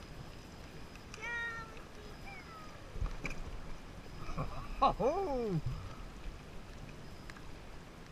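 A dog whining in two high, pitched cries: a short one about a second in, then a longer one around five seconds that slides steeply down in pitch. Underneath is the faint rush of river water, with a knock near three seconds.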